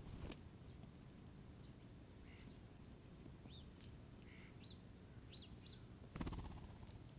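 A few faint, short bird chirps with quick pitch sweeps, coming in a loose cluster through the middle, over quiet background hiss. A brief low rush of noise sounds just after the start, and a louder one near the end.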